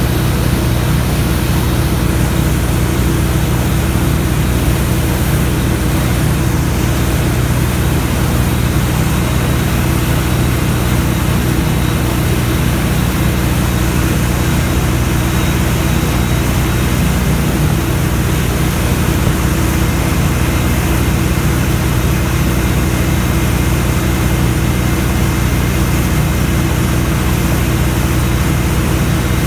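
MasterCraft wake boat's inboard engine running steadily under way, mixed with the rush of the churning wake water behind the boat.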